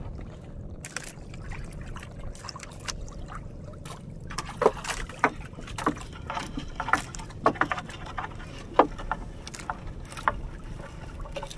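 Fishing net being hauled in over the side of a small wooden outrigger boat: irregular clicks and knocks of net and catch against the hull, starting about four and a half seconds in, over a steady low rumble.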